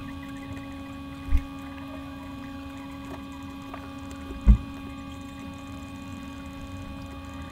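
Steady electrical hum of several unchanging tones, broken twice by a short low thump, about a second in and again about three seconds later; the second thump is the louder.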